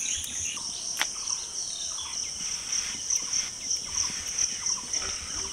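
Steady high-pitched insect chorus with birds chirping on and off, and a single sharp click about a second in.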